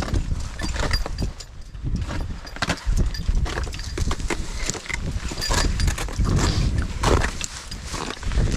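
Irregular crunching footsteps on snow and ice, with climbing gear clinking, over a low rumble of wind on the microphone.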